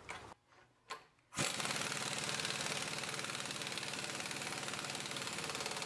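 Impact wrench hammering rapidly and steadily, running the 5/8 bolt and nut down on a drill opener's main arm pivot. It starts about a second and a half in, after a single click.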